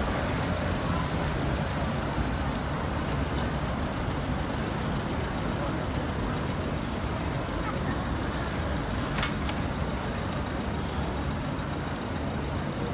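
Steady city street traffic noise with vehicles passing, and a single sharp click about nine seconds in.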